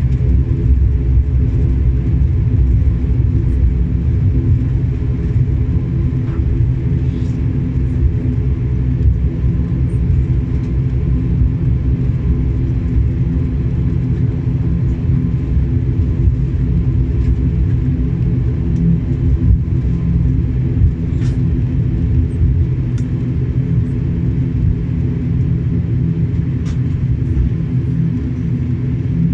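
Cabin noise of an ATR 72-600 taxiing after landing: its Pratt & Whitney PW127 turboprop engines and propellers run with a steady low drone and several even humming tones.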